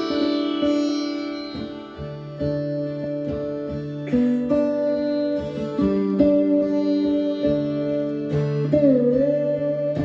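Lap-style slide guitar, an archtop acoustic played flat across the lap, picked in an unaccompanied instrumental passage. Ringing plucked notes sit over a sustained bass note, and near the end a slide bends the pitch down and back up.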